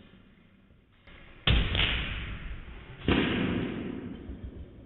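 Two heavy thuds about a second and a half apart, each ringing on for a moment in a large lecture hall, from the air-powered monkey gun demonstration rig.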